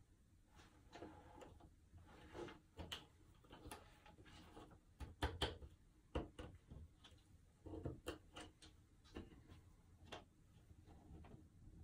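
Faint, irregular clicks and taps of cardboard jigsaw puzzle pieces being picked up, slid and pressed into place on a tabletop, with a louder cluster of taps about five seconds in.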